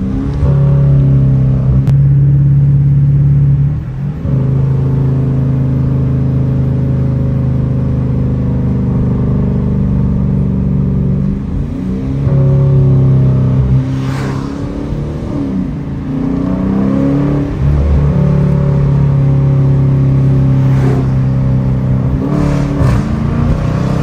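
Dodge Challenger R/T's 5.7-litre Hemi V8 heard from inside the cabin, under acceleration. Its pitch rises and drops several times as it changes gear.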